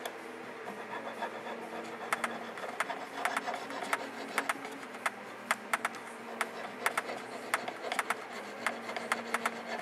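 Precision needle file worked by hand in short strokes along the edge of a sterling silver overlay bangle, giving a run of quick, irregular scraping ticks that grow more frequent about two seconds in.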